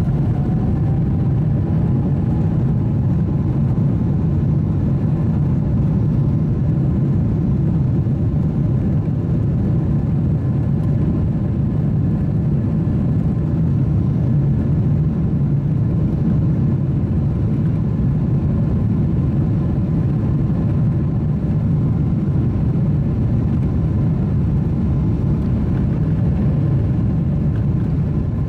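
Jet airliner cabin noise: a steady low rumble that does not rise or fall.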